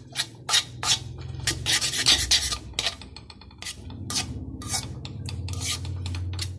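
Spatula scraping and stirring noodles and vegetables around a metal kadai: a quick, uneven series of rasping strokes against the pan, about two a second.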